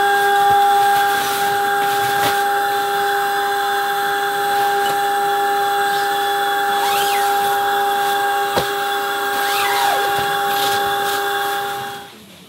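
Portable electric air pump running with a steady whine while inflating an air mattress, cutting off abruptly near the end. Light rustling and handling of bedding alongside.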